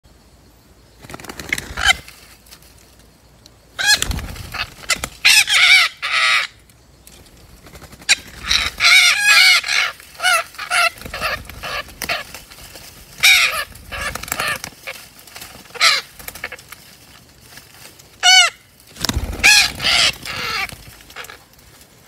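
Parrots giving loud, harsh squawks in repeated bursts, several calls close together in each burst, with short pauses between bursts.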